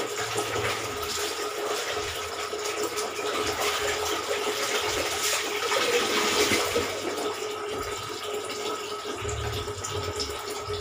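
Water sloshing and splashing in a plastic basin as clothes are scrubbed and wrung out by hand, with wrung-out water pouring back into the basin. A faint steady hum runs underneath.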